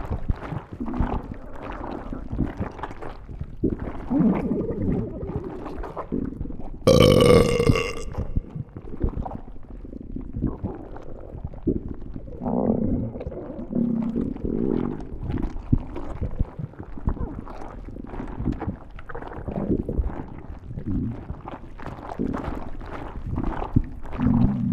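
Stomach growling and gurgling: an irregular run of low rumbles and bubbling, with one louder, higher-pitched growl lasting about a second, about seven seconds in.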